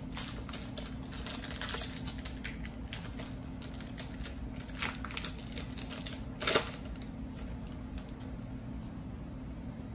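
Light clicks and taps of trading cards being handled and flipped, busiest in the first half, with one louder swish about six and a half seconds in.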